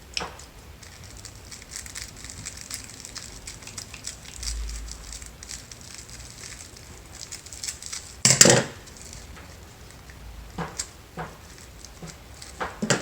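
Light rustling and crackling as a shipped plant division is unwrapped and handled, with one louder crackle a little past eight seconds in and a few sharp ticks near the end.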